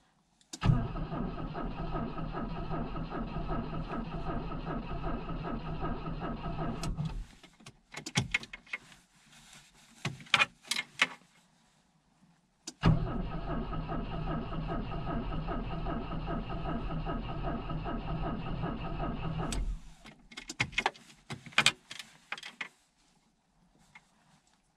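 A 1986 Volvo 245's carbureted B23A four-cylinder being cranked by its starter in a −14 °C cold start: two cranking attempts of about seven seconds each that stop abruptly without the engine catching, with a few sharp clicks in the pause between.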